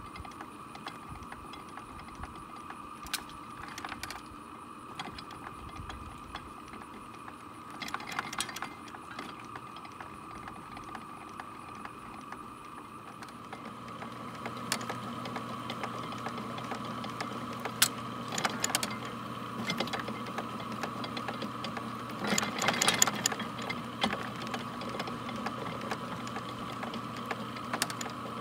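Early-1900s Deering reaper's gearing and rake mechanism running: a steady whir with a sharp clank or click every few seconds. It gets louder and fuller about halfway through, with a low hum joining in.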